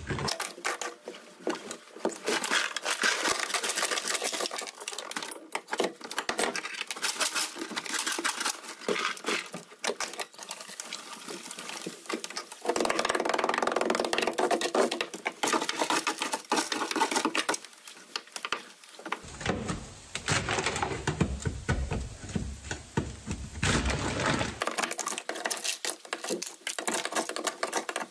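Hand scraper chipping and scraping dry-ice-frozen sound deadening off a car's sheet-metal floor pan, a fast, continuous run of scratches, taps and small cracks. The tar-like deadening is frozen brittle so it cracks off the steel.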